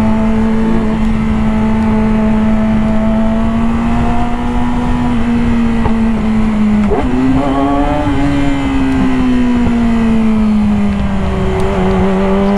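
Yamaha R6 inline-four engine running steadily under heavy wind rush. About seven seconds in, its pitch dips briefly and jumps higher, then falls off slowly over the next few seconds.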